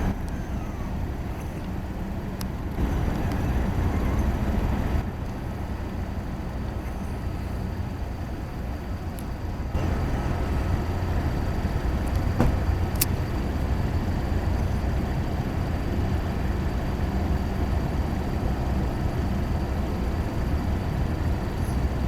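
Steady low engine rumble from a passing cargo ship and its tugboats, shifting in level a few times, with two brief sharp clicks a little past halfway.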